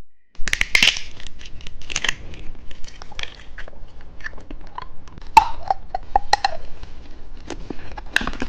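Candy wrappers and plastic packaging being handled close to the microphone: irregular crinkling and clicking, with a few short squeaks about halfway through.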